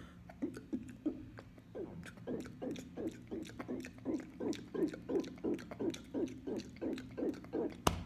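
A man gulping over and over, about three short gulps a second, each falling in pitch, while working up a burp. A low steady hum runs underneath.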